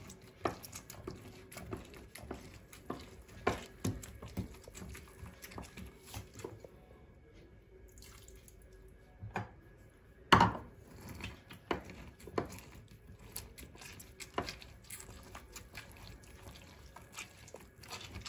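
Lemon halves twisted and squeezed on a glass citrus reamer: repeated small squishes, clicks of glass and juice dripping. One sharp, louder knock about ten seconds in.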